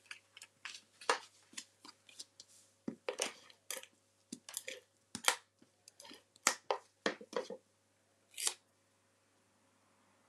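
Hands handling squares of patterned paper and card stock on a tabletop: a run of short rustles, slides and taps that stops about eight and a half seconds in.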